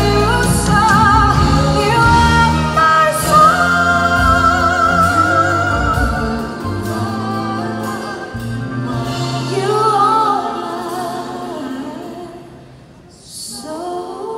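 A woman singing live into a microphone with vibrato and long held notes, backed by a band with drums. The music softens and briefly drops away near the end, then the band comes back in.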